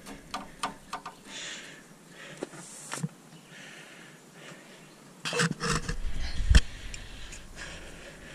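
Handling sounds of a brass hand oil-extractor pump being fitted onto an engine's dipstick tube. A few light clicks come at the start and another click about three seconds in, then a louder run of knocks and rubbing about two-thirds of the way through, ending in a heavy bump.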